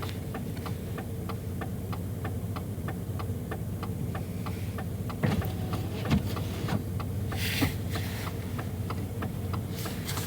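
Vehicle's hazard-flasher relay ticking steadily, about three ticks a second, over a low steady hum. A gust of wind hisses across the microphone about seven seconds in.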